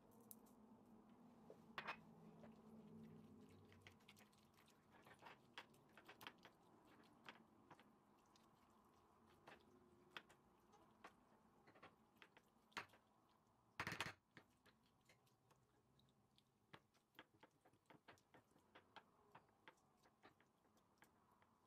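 Faint, irregular clicks and light taps, as of kitchen utensils and ingredients being handled, with a louder knock about fourteen seconds in.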